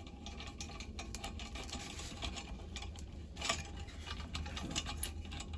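Scattered light clicks and taps of small metal parts being handled while a patio heater's thermocouple is fitted back to the gas valve, one slightly louder tap about three and a half seconds in, over a low steady hum.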